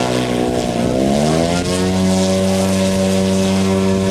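Model aircraft engine running: its pitch rises over the first second and a half, then holds steady at high revs.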